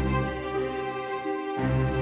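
Background music of sustained instrumental chords, the notes changing about one and a half seconds in.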